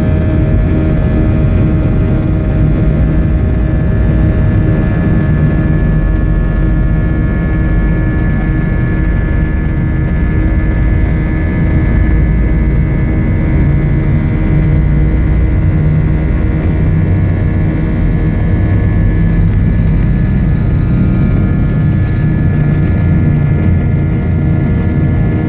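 Airbus A320's jet engines running steadily, heard inside the cabin: a loud, even low rumble with a steady whine of several tones over it.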